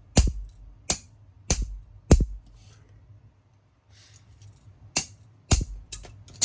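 Repeated sharp blows smashing plastic parts of a wireless mouse: four hits in quick succession, a pause of a couple of seconds, then four more.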